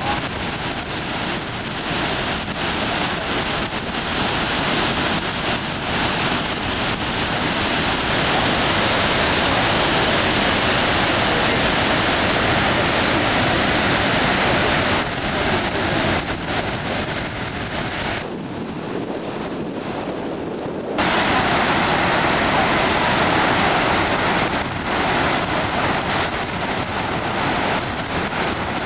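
Steady, loud rush of Niagara's Horseshoe Falls and the fast water at its brink. About two-thirds of the way through the sound dulls and drops for a few seconds, then comes back suddenly at full strength.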